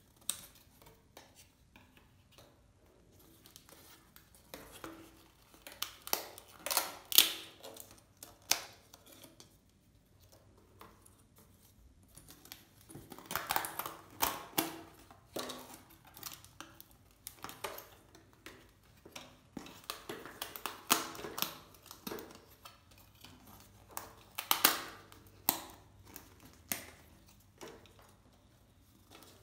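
Die-cut foam-board puzzle pieces being pushed out of their card sheet by hand: clusters of sharp clicks and crackles every few seconds as the pieces break free, with quieter handling of the sheet between.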